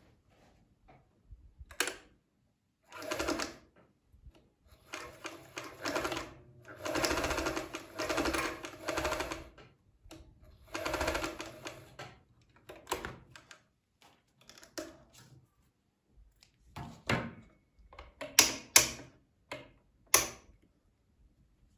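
Electric domestic sewing machine stitching in short runs, the longest about five seconds, sewing a zigzag stitch. Several sharp clicks come near the end.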